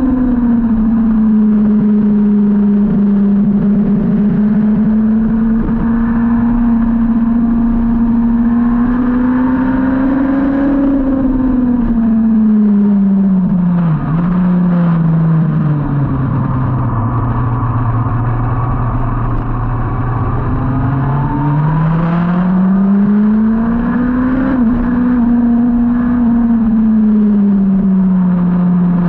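2003 Yamaha YZF-R1's inline-four engine at high revs on track, with steady wind rush over the microphone. The engine note falls away as the bike slows for a corner about halfway through, stays low for several seconds, then climbs again as it accelerates out and eases off slightly near the end.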